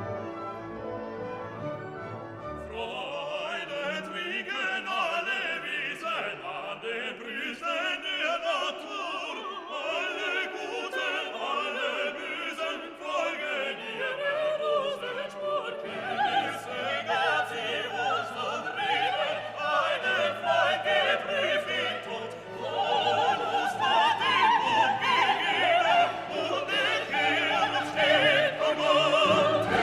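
Background classical music with orchestra and operatic singing.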